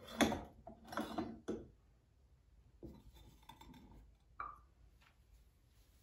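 Soft handling sounds of a dessert plate and cake server being moved on a tabletop: a few brief rubs and taps in the first second and a half, then one short sharp tap a little past four seconds.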